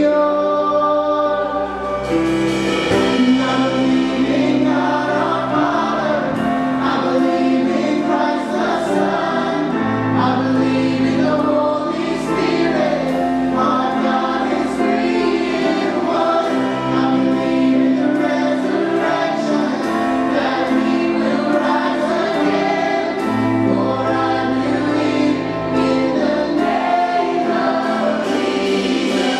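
A worship band playing live, with guitars and keyboard, while the congregation sings along in long, held lines.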